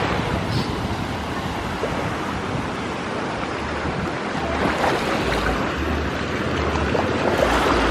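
Ocean surf washing steadily, with wind buffeting the microphone in low rumbles from about halfway through.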